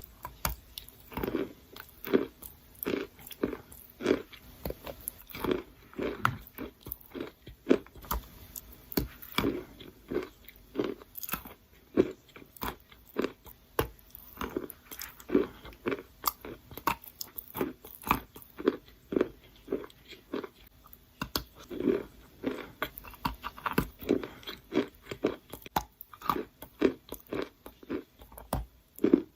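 Wet, sandy, grainy material being crunched over and over, in a run of separate short crunches about one to two a second.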